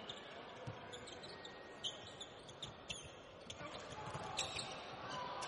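Basketball bouncing on a hardwood court, a few separate thumps, with short high squeaks of sneakers and arena crowd noise that swells near the end.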